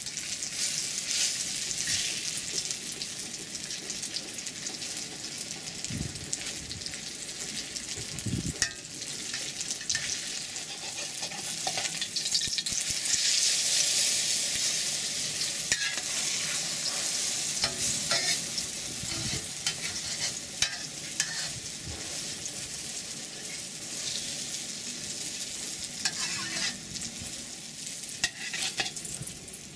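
Egg and cha-om omelette sizzling in hot oil in a wok, with a metal spatula scraping and pressing it now and then. The sizzle is a steady hiss that grows loudest about halfway through.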